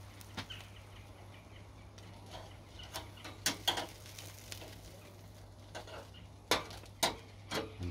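Barbecue grilling chicken and burgers: scattered crackles and clicks over a steady low hum.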